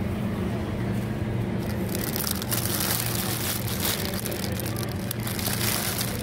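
Clear plastic produce bags crinkling as a hand handles bagged bok choy, starting about two seconds in, over a steady low hum.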